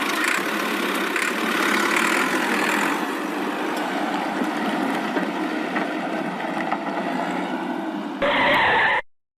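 Steady, noisy vehicle driving sound effect, with a short, louder sound just after eight seconds before it cuts off suddenly.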